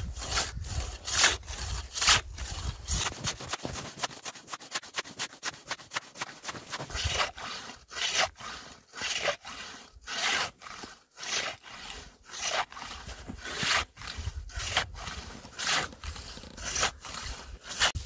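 Hand saw cutting through sea ice: rough, uneven strokes, about one or two a second, coming quicker for a stretch a few seconds in.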